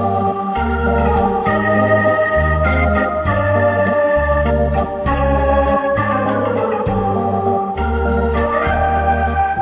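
Instrumental background music: an organ-like keyboard tune over a bass line that steps to a new note about once a second, with a pitch sweep sliding down in the middle and a short one rising near the end.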